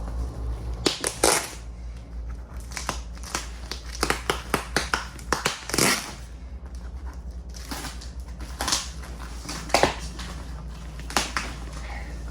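Plastic packaging being handled and torn open: irregular crinkling and rustling with a few sharp crackles, over a steady low hum.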